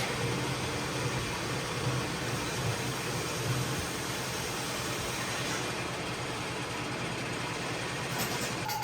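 Steady machine running with a low hum and an even rushing noise, typical of a wheel lathe turning an alloy rim. A steady high-pitched tone starts right at the end.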